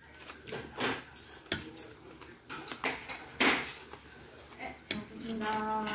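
Spoons and chopsticks clinking and knocking against ceramic bowls and earthenware soup pots: a handful of separate clinks, the loudest about three and a half seconds in. A short steady hum follows near the end.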